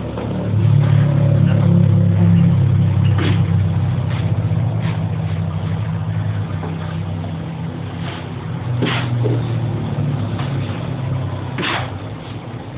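A low, steady motor hum, loudest in the first few seconds, with scattered sharp clicks.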